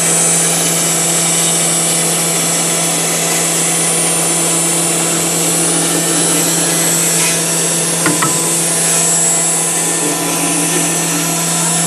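4-axis CNC router spindle running steadily as its bit carves through white polystyrene foam: a constant hum over the hiss of the cut, with one short click about eight seconds in.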